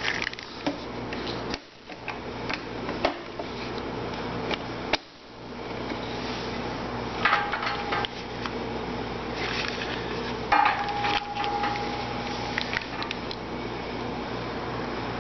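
Clicks, knocks and light rattles of CNC stepper-motor cables and connectors being handled and plugged into a metal control cabinet, with a couple of brief metallic scrapes, over a steady low hum.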